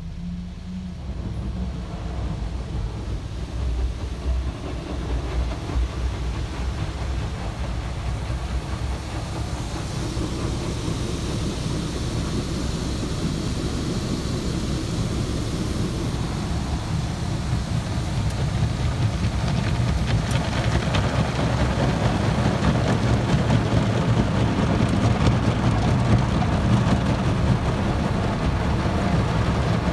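Automatic car wash heard from inside the car: large rotating brushes scrubbing over the windshield and body amid spraying water, a steady rumbling din that grows louder about a third of the way in and again past the middle.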